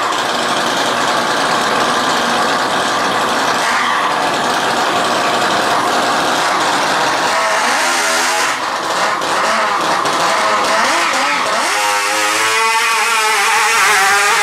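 Nitro model engine of an RC pulling tractor running loud and steady, then revving up and down repeatedly from about halfway in as the tractor pulls away with the weight sled.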